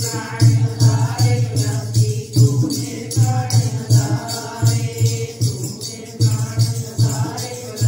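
Women's group singing Sikh shabad kirtan together, accompanied by a dholak barrel drum beating a steady rhythm and a tambourine jingling along with the beat.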